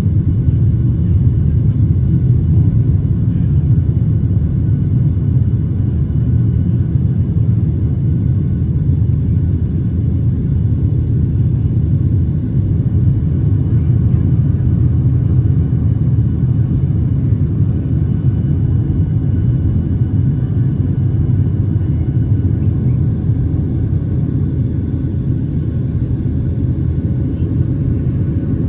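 Cabin noise of a Boeing 737-800 heard from a seat over the wing: its CFM56-7B engines and the airflow give a steady low rumble.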